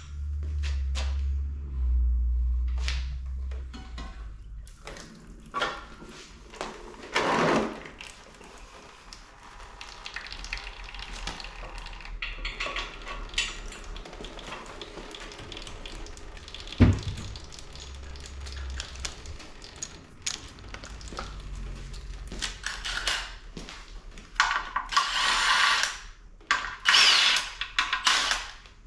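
Engine teardown work: a power tool runs in short bursts, louder near the end, among clicks and knocks of metal parts, with one sharp knock about halfway through.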